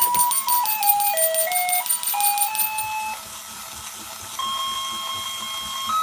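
Battery-operated animated bell-ringing Santa toy playing a generic electronic Christmas tune, one plain beeping note at a time, with its bell jingling rapidly over the melody. About three seconds in the bell stops and the tune drops away, then comes back with a long held note.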